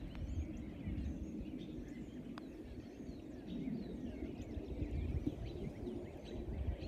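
Wind rumbling on the microphone, with several small birds chirping and twittering throughout. A single light click about two and a half seconds in, the putter striking the golf ball.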